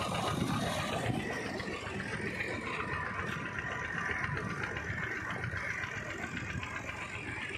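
Belarus tractor's diesel engine running steadily, driving a tubewell pump, with water gushing out of the delivery pipe into the channel.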